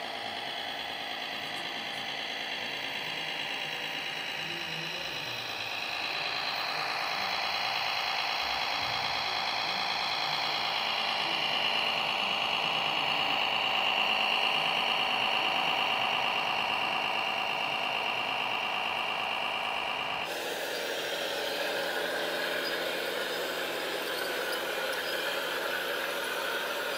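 Electric drive motor and gearbox of a radio-controlled model tractor whining steadily as it pulls a cultivator through sand. About twenty seconds in the sound cuts abruptly to a rougher, noisier motor whine from another model tractor pulling a roller.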